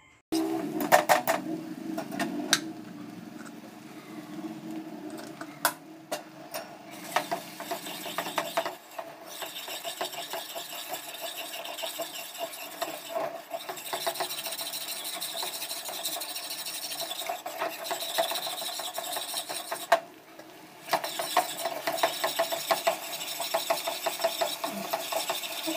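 A cooking spoon stirring and scraping thick fenugreek kali dough in a metal pan: a continuous rough scraping with rapid small clicks and knocks of metal on the pan. It pauses briefly twice.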